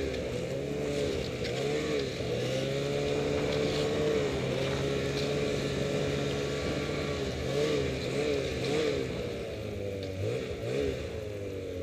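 Ski-Doo Summit X 800R E-TEC two-stroke twin snowmobile engine running on light, varying throttle, its pitch rising and falling. Near the end it settles to a steady low idle as the sled pulls up and stops.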